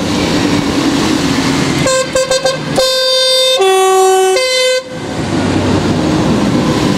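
Passing tractors and road traffic running, with a vehicle horn giving several quick toots about two seconds in, then a long blast that steps down in pitch and back up before stopping about five seconds in.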